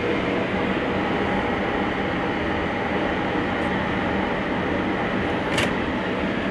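Steady rumble and hum inside a Caledonian Sleeper carriage, with a single brief sharp click about five and a half seconds in.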